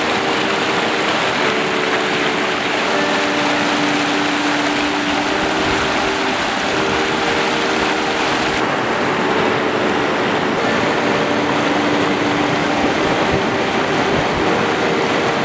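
River water rushing steadily, a dense even noise, with a few faint held low tones coming and going over it.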